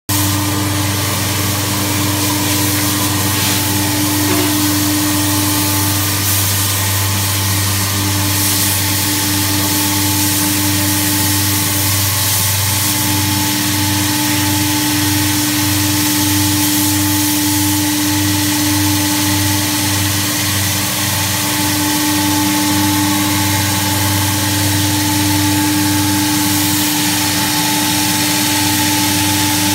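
ANDI Stratos CNC router running under power: a steady, loud machine hum with a steady whine over it and a hiss on top.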